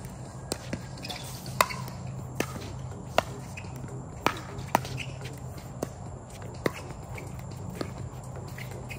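Pickleball paddles striking the ball in a doubles rally: about ten sharp pops, irregularly spaced half a second to a second apart, over a steady low hum.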